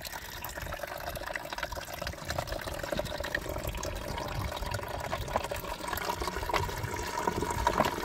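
Water from a tiered garden fountain pouring and trickling into its basin, a little louder near the end as the fountain's pump is turned up toward high speed.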